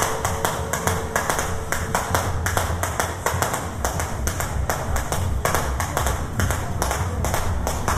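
A rapid, irregular run of sharp cracks, several a second, over a steady low rumble.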